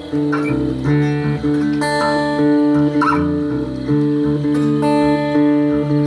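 Acoustic guitar strummed slowly, about one chord a second, each chord left to ring.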